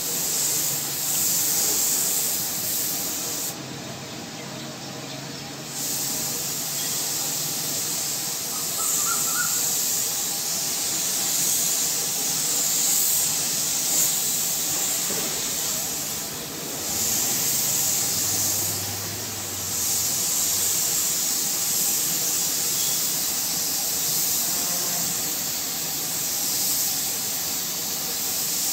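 Gravity-feed compressed-air spray gun hissing as it sprays a pearl coat over red paint, in several passes with a short break about four seconds in and brief pauses later on.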